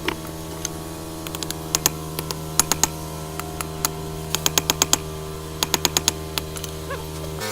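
Light, quick hammer taps on hot knife steel at the anvil, coming in short runs of several sharp clicks about five a second, over a steady hum.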